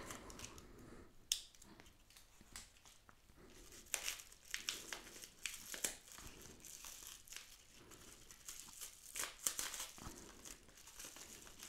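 Yellow padded bubble mailer being cut open with a small pocket knife and torn apart by hand: irregular crinkling and tearing of the paper and its bubble lining, with louder spells about four and nine seconds in.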